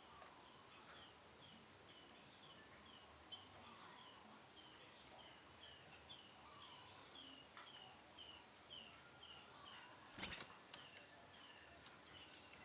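Young canaries chirping faintly: a short, slightly falling chirp repeated about twice a second, with one sharp click about ten seconds in.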